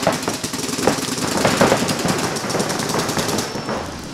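Paintball markers firing in rapid, fast-rattling streams of shots, easing off near the end.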